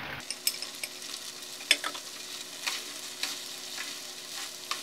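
Chopsticks stirring fusilli with minced beef and tomato sauce in a frying pan over the heat. The mixture sizzles underneath, with irregular light clicks of the chopsticks against the pan.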